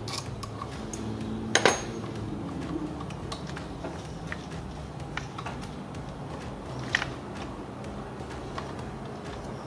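Hand tools clinking and tapping against metal while a small ratchet with a Torx socket loosens bolts in a car's engine bay. Scattered light clicks, with a sharp metallic clink about a second and a half in and another near seven seconds.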